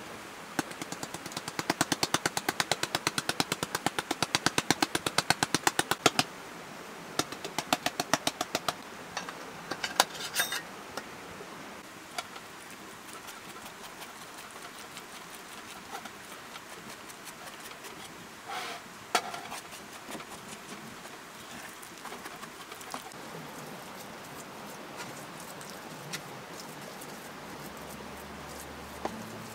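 A utensil beating and stirring crumbled cottage cheese and flour in a wooden bowl. The first six seconds hold a quick, even run of scraping strokes, about seven a second, then slower, quieter stirring with scattered taps.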